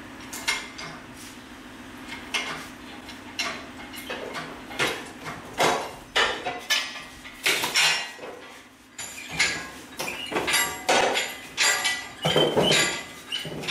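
Irregular metallic clinks and clanks, some ringing briefly, as an engine hanging by a chain from a shop engine hoist is worked loose from the car. A faint low steady hum runs underneath.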